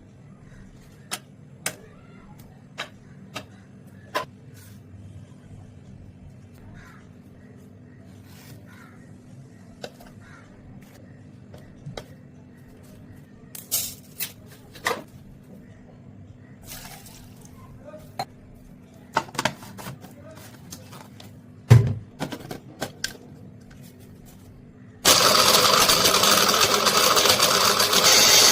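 Scattered clicks and taps of ingredients being handled and dropped into a blender jar, then an electric blender switches on suddenly near the end and runs steadily, blending the milkshake.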